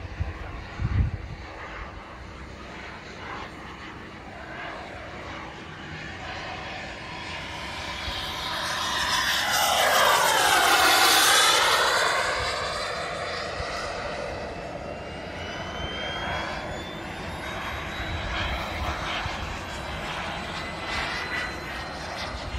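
Radio-controlled model jet aircraft with a turbine engine flying past: its whine builds to loudest about halfway through, sweeping in pitch as it passes, then fades into a steady high whine as it flies off.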